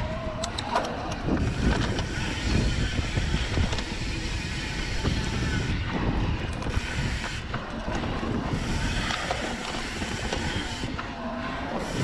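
Mountain bike rolling fast down dirt singletrack: wind buffeting the microphone over tyre noise, with scattered knocks and rattles from the bike over bumps.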